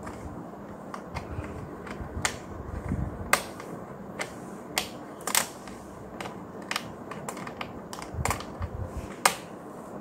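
Irregular sharp plastic clicks and taps, about fifteen spread unevenly, as the HP ProBook 4420s keyboard is pressed down and snapped into place along its top edge.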